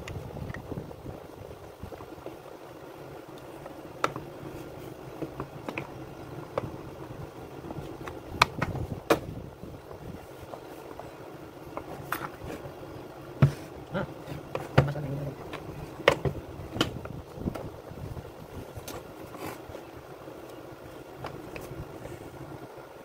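Irregular clicks and knocks of plastic and metal parts of a Makita UC4551A electric chainsaw being handled and fitted by hand, over a steady low hum; the clicks are busiest in the middle.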